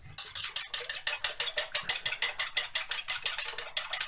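Eggs and half-and-half being beaten by hand in a bowl: a fast, even clicking of the utensil against the bowl, about eight to ten strokes a second.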